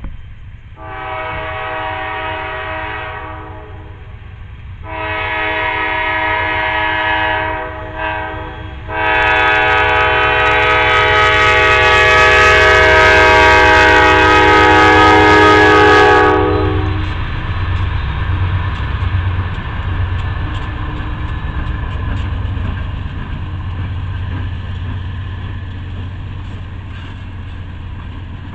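Diesel freight locomotive's multi-note air horn sounding the grade-crossing signal: two long blasts, a short one, and a final long blast held for about eight seconds, growing louder as the train nears. When the horn stops, the low sound of the diesel locomotives and the freight cars rolling over the rails goes on as the train passes.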